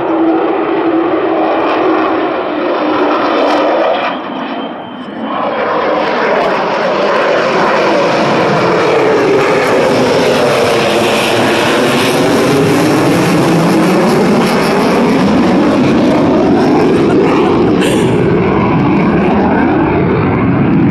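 Military jet flying low overhead, its engine noise loud, easing briefly about four seconds in, then building again and staying loud. As it passes, the sound sweeps down and back up in pitch.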